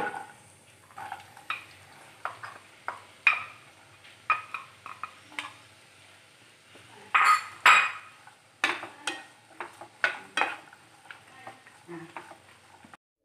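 Wooden spatula stirring sliced shallots in a frying pan: irregular knocks and scrapes against the pan, the loudest pair about seven seconds in.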